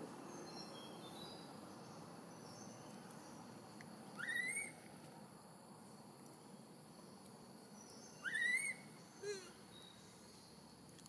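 Newborn macaque crying: two short, high calls that rise in pitch, about four seconds apart, and a brief wavering call just after the second. A faint steady background runs underneath.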